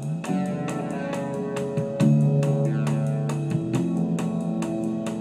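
A band's studio recording playing back: guitar chords held over a steady drum beat, the chord changing about two seconds in.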